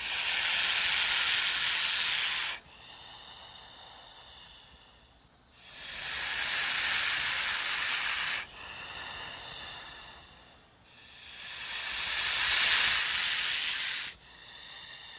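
A snake hissing in three long hisses of about two and a half seconds each. Each is followed by a quieter hiss that fades away, and the last loud one swells as it goes.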